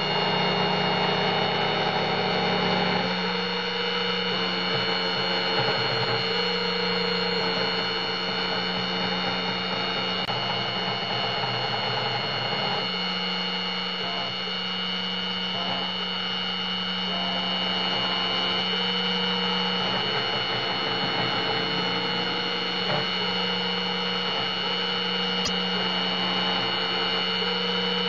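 A CNC router spindle running steadily with a high whine as its V-shaped engraving bit mills the traces into a copper-clad circuit board. Underneath, a lower hum shifts in pitch every several seconds.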